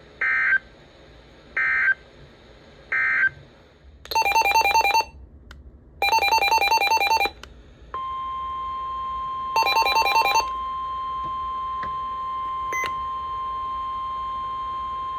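Emergency Alert System data tones on NOAA Weather Radio. First come three short, shrill data bursts of the end-of-message code, then longer buzzy SAME header bursts, and from about eight seconds in a steady 1050 Hz warning alarm tone.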